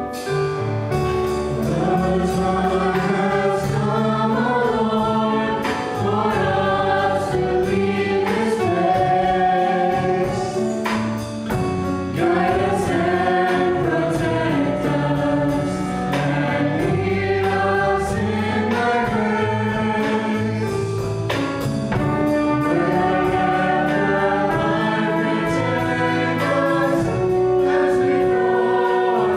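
A small mixed vocal group singing a Christian worship song in harmony, backed by a live band of keyboard, bass guitar and drum kit with a steady beat.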